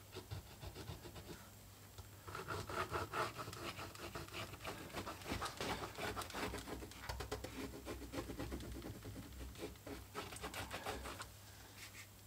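A small pointed marking tool scratching across the surface of leather, tracing out a sheath welt in quick, uneven strokes. It starts about two seconds in and stops shortly before the end.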